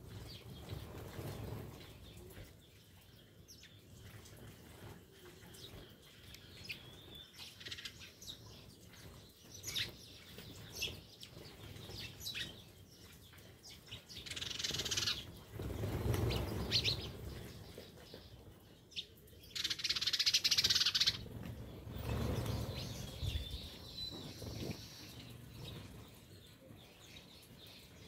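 House sparrows chirping and fluttering their wings as a flock feeds on the ground, with several bursts of wing flapping as birds land and take off, the loudest about twenty seconds in.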